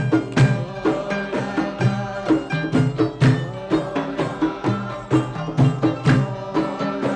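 Traditional Gulf folk music: large hand-held frame drums beaten in a steady, driving rhythm, with oud and qanun playing.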